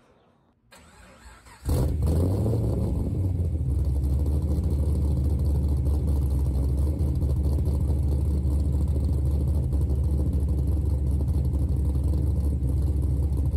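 Near silence, then about two seconds in a vehicle engine starts sounding, idling steadily and low.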